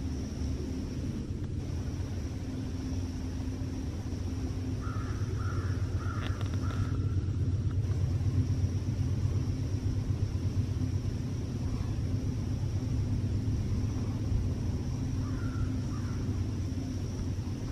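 Steady low rumble with a hum, like a distant engine, growing a little louder through the middle. A faint steady high-pitched tone runs underneath, and a couple of brief bird calls come about five seconds in and again near the end.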